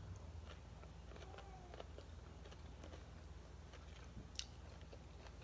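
Faint chewing of a mouthful of shredded green mango salad, with small wet clicks of the mouth and one sharper click about four seconds in.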